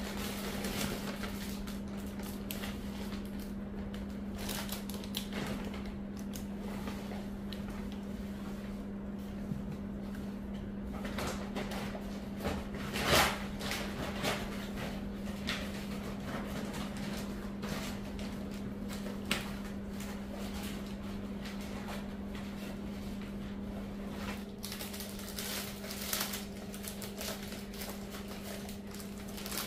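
Rustling and crinkling of a woven plastic IKEA shopping bag and bouquet wrapping paper being handled, with light knocks of pots set on a stone counter, the loudest about halfway through. A steady low hum runs underneath, and a second, higher hum joins near the end.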